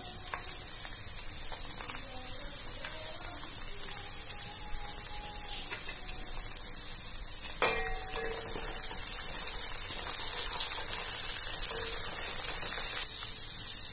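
Sliced shallots, garlic and ginger frying in ghee in a wok, a steady high sizzle. A single sharp knock comes about halfway through, and near the end a wooden spatula stirs the frying onions.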